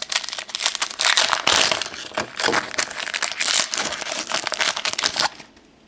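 Foil wrapper of a trading-card pack crinkling as it is opened and handled, stopping about five seconds in.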